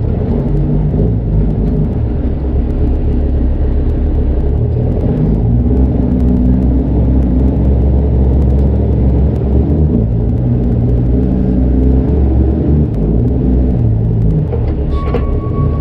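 Straight-piped Cummins diesel of a Kenworth C500 winch tractor running loud under load as the rig pulls slowly away, its pitch shifting a few times.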